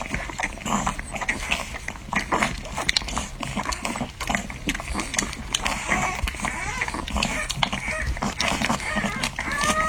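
Newborn French Bulldog puppies nursing: a constant patter of wet sucking and smacking clicks, with a short squeak just before the end.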